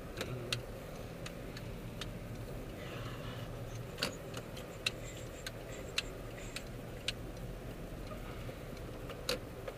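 Car turn-signal indicator ticking, about two clicks a second, over the low hum of the car's cabin.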